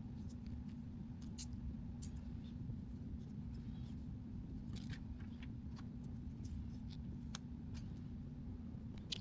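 Scattered light clicks and ticks, irregularly spaced, over a steady low hum.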